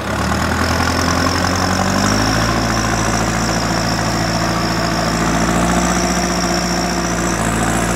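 Massey Ferguson 5455 tractor's diesel engine revving up and then running hard under load as it strains on the tow chain to pull a stuck tractor and water tanker out of the mud. Its pitch climbs over the first couple of seconds and then holds steady, with a thin high whine over the engine.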